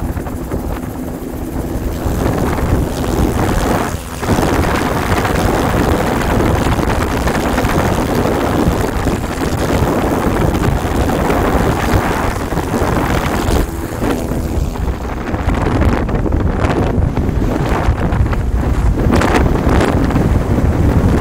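Loud, steady rush of freefall wind buffeting a camera microphone during a skydive from a helicopter, with a brief lull about four seconds in.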